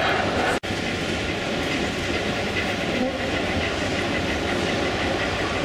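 Large-scale model of a Harz narrow-gauge 2-10-2T steam tank locomotive (99 7245) and its coach running along the layout track, wheels clicking over the rail joints amid steady hall noise. The sound breaks off for an instant about half a second in.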